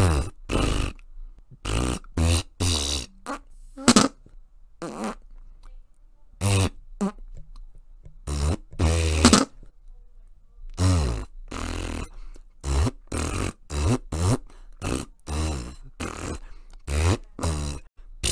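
A long string of short fart sounds, one after another with brief gaps, several gliding up or down in pitch. They are spoken sentences in Flatula, a constructed language made of farts.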